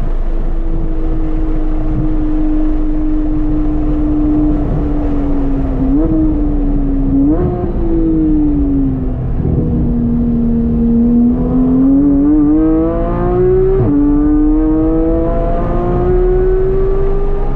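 Porsche 911 GT3 (991.1) naturally aspirated flat-six with an aftermarket exhaust, running hard on track. The revs hold high, jump up with two quick downshift blips about six and seven and a half seconds in, and sag into a slower stretch. They then climb again under acceleration, with an upshift about fourteen seconds in.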